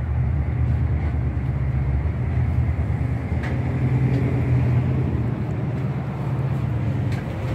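Steady low mechanical hum of a machine running in the background.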